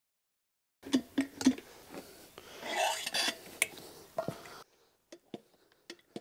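Motorcycle wheel with a knobby tyre being handled and flipped over on a tyre-changer stand. After a moment of dead silence come a run of knocks and clicks and a brief rubbing scrape, then fainter scattered clicks.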